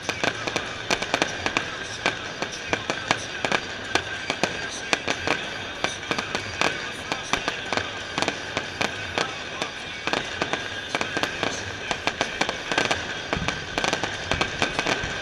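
Fireworks display with bangs and crackles going off in quick, irregular succession, several a second.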